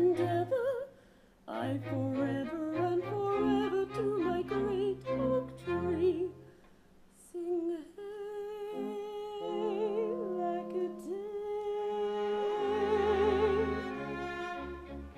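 Operetta singing with a small orchestra, bowed strings carrying the low notes. In the second half a voice holds a long note with vibrato before it ends.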